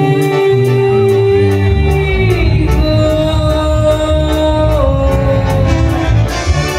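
Dance band music with a steady beat: long held melody notes that slide down a couple of times, over a stepping bass line and drum ticks about twice a second.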